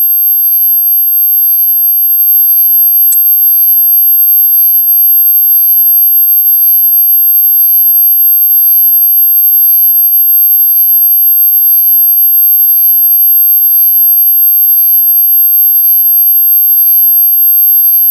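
A steady, very high-pitched electronic tone, held unchanged throughout, with a brief click about three seconds in.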